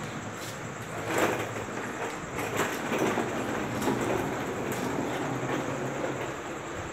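Irregular knocks and rattling of a children's plastic ride-on toy car as toddlers clamber over it, over a steady low rumble.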